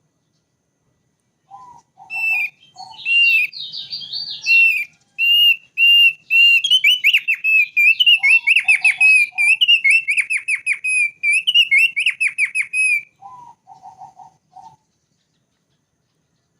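Thick-billed white-eye singing: a fast string of clear whistled notes and trills, with short groups of lower notes in between. It starts about a second and a half in and stops about two seconds before the end.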